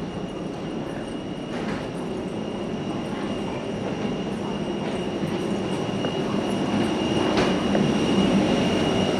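Steady machinery rumble with a thin high whine running through it, growing louder toward the end as the aircraft door is reached: ground-equipment and aircraft noise in an airport jet bridge.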